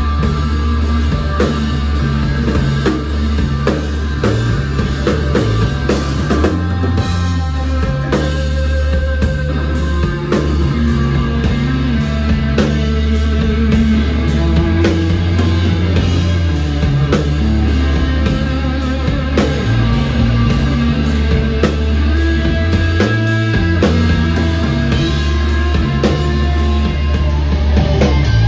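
Live psychedelic rock band playing loud: electric guitar over a busy drum kit with cymbals and a heavy low end, with no break.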